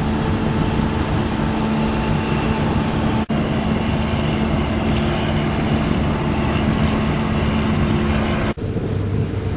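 Boat engine running steadily with wind and water noise. The sound breaks off for an instant twice, a little past 3 seconds and again near the end, and the engine's pitch is lower after the second break.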